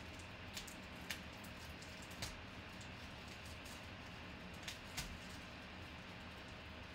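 Bubble wrap being unwrapped by hand from a graded card's plastic holder: a handful of short, sharp plastic crackles at irregular intervals over a faint steady hiss.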